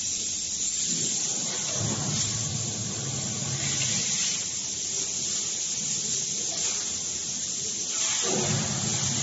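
Semi-automatic foil-lid sealing machine for paper tubes running in a factory: a steady hiss over a low hum. The hum swells about two seconds in and again near the end.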